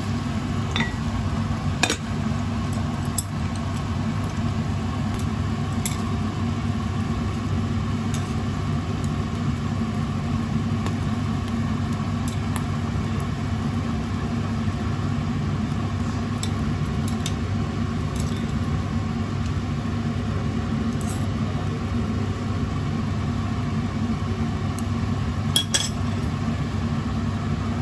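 Clay pot of soup simmering on the stove: a steady low rumble, with a few light clinks against the pot, the loudest two close together near the end.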